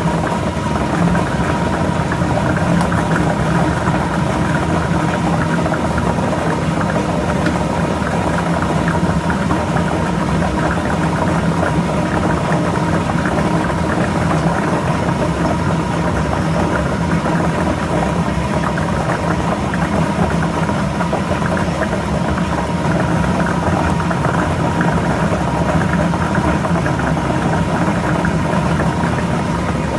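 Lottery ball drawing machine running steadily: a constant motor hum with the balls rattling and tumbling inside.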